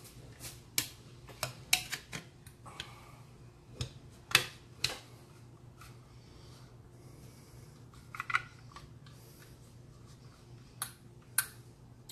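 Polymer Magpul MOE carbine handguard halves clicking and knocking against the AR-15 as they are pressed and snapped into place. The knocks are sharp and irregular, the loudest a little before the middle.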